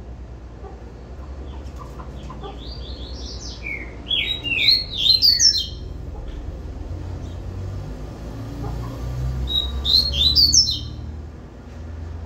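Caged double-collared seedeater (coleiro) singing its 'tui-tui' moleque song: two phrases of quick, sweeping notes, the first starting about two and a half seconds in, the second around ten seconds in.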